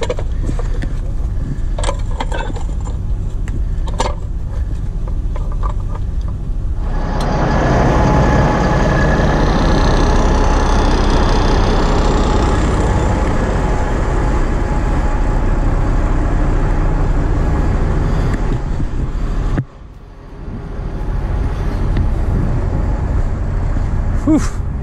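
Semi truck's diesel engine running close by, much louder through a long stretch in the middle.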